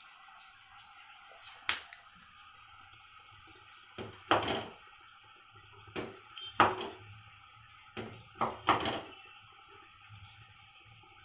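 A sharp click about two seconds in, then three separate clusters of short knocks and scuffing sounds spaced about two seconds apart.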